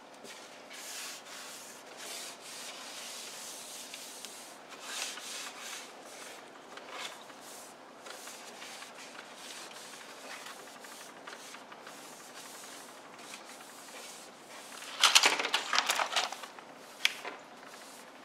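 A cloth being rubbed over a wooden surface in repeated wiping strokes. About three-quarters of the way through comes a loud, brief clatter of hard plastic toys knocking together in a plastic basket, then one more click.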